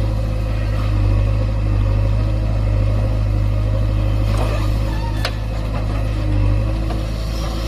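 Diesel engine of a JCB 3DX backhoe loader running steadily under load as the backhoe digs earth and tips it into a truck bed, with a single sharp knock about five seconds in.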